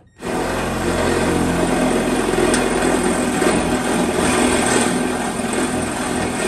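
Cordless drill starting suddenly and running steadily under load, boring out a hole in a car's sheet-metal trunk lid with a bit smaller than the hole needs.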